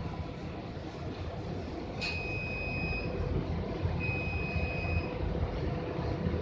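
Gusty wind rumbling on the microphone over a steady industrial hum, as a dust devil spins across a dirt yard. About two seconds in, two long electronic warning beeps sound, each about a second long and two seconds apart.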